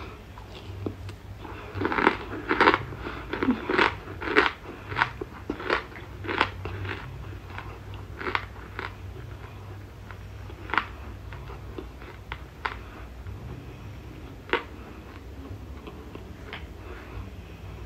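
Close-up chewing of dry cornstarch chunks. Quick crisp crunches come for about five seconds, then slow to single crunches every second or two.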